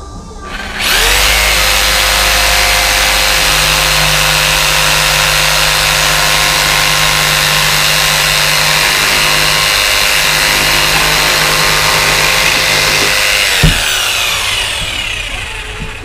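Electric jigsaw cutting through a sheet of plywood. It starts about a second in and runs steadily for some twelve seconds, then there is a brief knock and the motor winds down with a falling whine.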